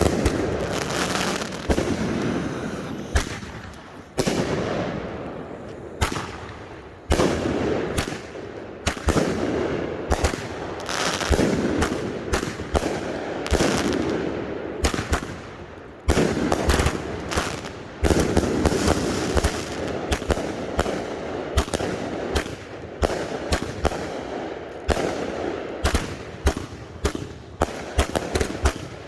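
Consumer fireworks cakes firing: a rapid, continuous run of sharp launch bangs and aerial bursts with crackling between them. Bigger sudden blasts come about 4, 7, 16 and 18 seconds in.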